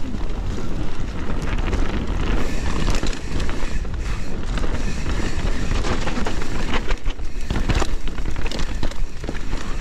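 Mountain bike rolling fast down a wet, muddy trail: tyres, frame and drivetrain rattling with irregular knocks over rough ground, under a heavy rumble of wind buffeting the microphone.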